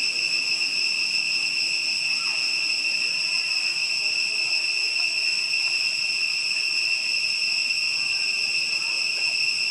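Continuous shrill drone of calling insects, one steady high-pitched tone that never pauses or changes.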